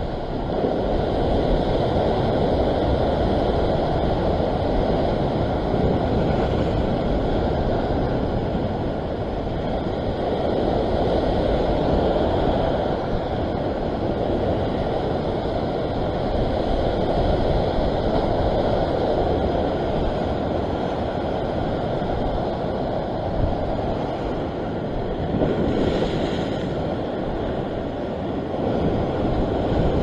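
Ocean surf washing and breaking steadily against a rocky shore, with wind buffeting the microphone. A brief louder hiss of spray comes near the end.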